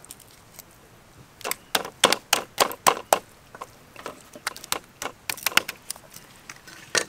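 Meat cleaver chopping chicken breast on a round wooden chopping block: a quick, uneven run of sharp knocks starting about a second and a half in.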